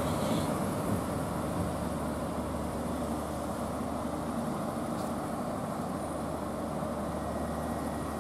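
Diesel engines of a Northern Ireland Railways Class 3000 diesel multiple unit running steadily at the platform, a low hum that eases slightly in the first second.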